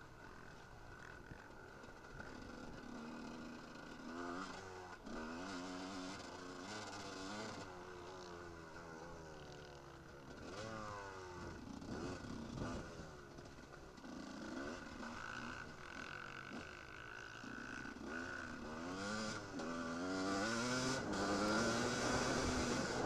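Enduro motorcycle engine heard from on board, revving up and down as it is ridden cross-country, its pitch climbing in repeated sweeps as the rider opens the throttle and changes gear. It gets louder near the end.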